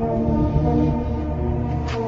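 Background music of sustained low notes over a deep drone, with a short burst of noise near the end.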